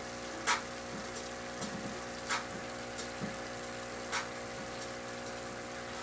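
Large oscar and parrot fish striking at food on the aquarium's water surface: short splashy pops, the three clearest about half a second, two and a quarter and four seconds in, over a steady low hum.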